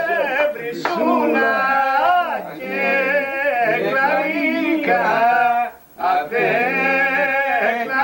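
A man singing unaccompanied in long, held, wavering notes, with a short break for breath about six seconds in.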